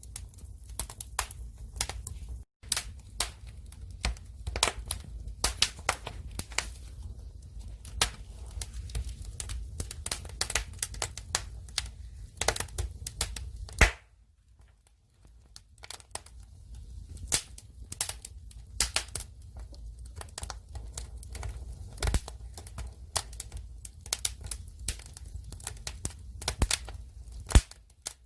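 Firewood fire crackling, with frequent irregular sharp pops and snaps over a low rumble. The sound falls away briefly, for about a second and a half, midway through.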